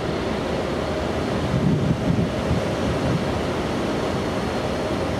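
Wind buffeting the microphone over the steady rush of sea water along a cruise ship's hull under way, with slight swells in loudness.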